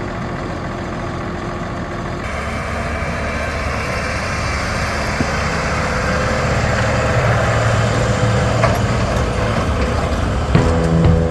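Case IH tractor's diesel engine running steadily, growing gradually louder, with a change in the sound about two seconds in. Music starts just before the end.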